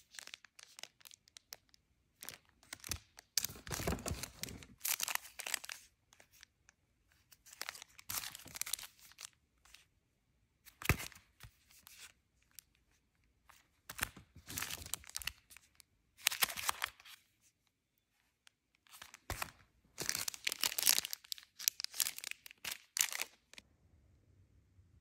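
Clear plastic packaging crinkling and tearing as sealed stationery packets are handled and opened, in irregular bursts with short pauses. The handling stops near the end.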